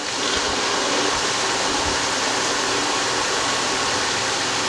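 Blue Wave 1.5 hp above-ground pool pump switching on and running steadily: a motor hum under a rushing noise.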